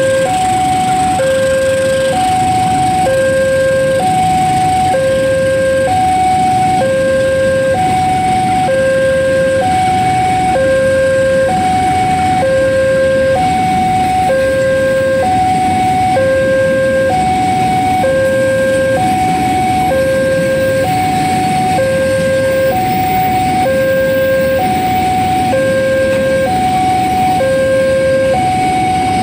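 Railway level-crossing warning alarm sounding a two-tone low-high signal, switching about once a second, over a steady low rumble.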